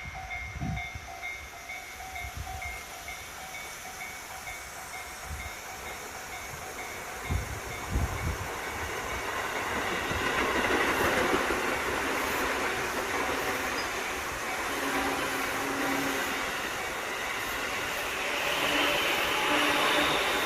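Japanese level-crossing warning bell ringing in a steady repeating two-tone clang, about twice a second. From about eight seconds in, a passing commuter train grows louder and drowns the bell, with wheels rumbling on the rails.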